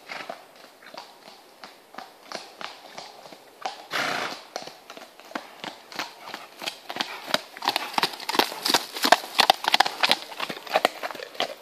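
Hoofbeats of a piebald feathered cob walking on a hard dirt track, a steady run of clip-clops that grows louder as the horse comes near and passes, loudest in the second half. A short rush of noise stands out about four seconds in.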